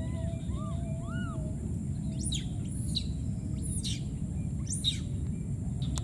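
Birds calling outdoors: a few short arched calls at first, then from about two seconds in a series of high, sweeping chirps, over a steady low background rumble.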